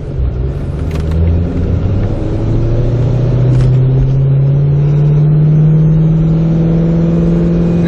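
Car engine and road rumble while driving, the engine note rising steadily as the car accelerates and then holding level.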